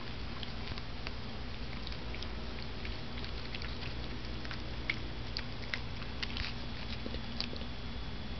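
Cavalier King Charles Spaniel eating dry kibble from a plastic bowl: scattered small crunches and clicks of the kibble, over a steady low background hum.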